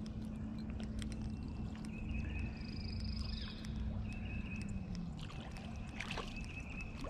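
Small fishing reel being cranked to bring in a hooked rainbow trout, a steady low whir that slows about five seconds in, with light water splashing from the fish at the surface.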